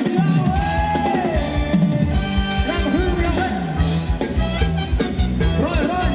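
Live band playing a Thai ramwong dance tune: a steady drum-kit beat and bass line under a melody that bends in pitch.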